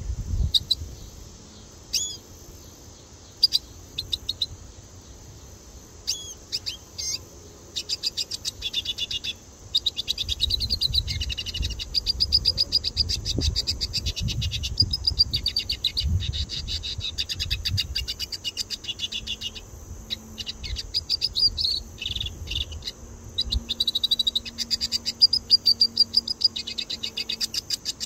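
Red siskin singing. It gives a few separate upswept call notes at first, then from about eight seconds in a long, fast, buzzy twittering song broken by brief pauses.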